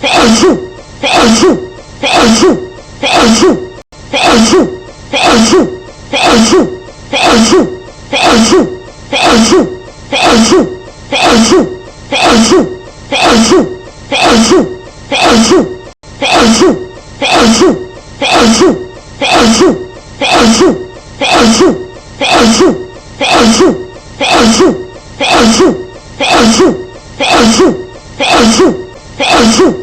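A woman's sneeze, one short clip repeated back to back in an edit loop, a little under once a second with a brief gap between repeats.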